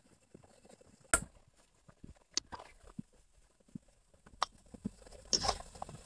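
Scattered sharp clicks and light knocks, a second or two apart, with a quick cluster of them near the end.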